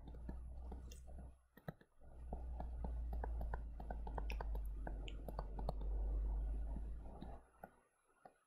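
Faint ticks and scratches of a stylus writing on a tablet screen, over a low rumble that drops out briefly about a second and a half in and stops about seven seconds in.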